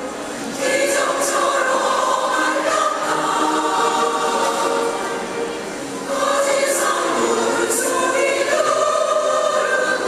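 Large women's choir singing in sustained, flowing phrases, with a short break just after the start and another near six seconds in.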